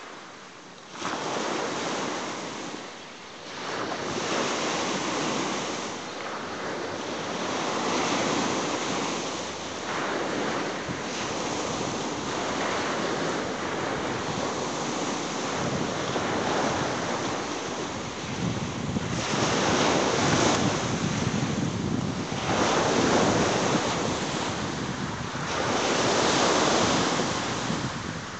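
Sea waves breaking on a shore, the surf swelling and easing every three to four seconds, with wind buffeting the microphone.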